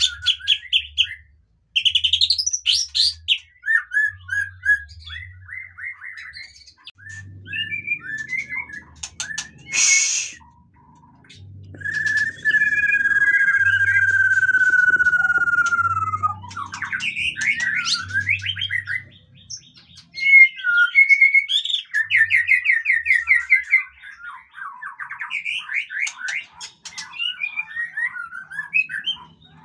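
White-rumped shama (murai batu) singing a varied song of clear whistles, trills and rapid chattering phrases, with one long falling whistle in the middle. A single sharp click comes about a third of the way in.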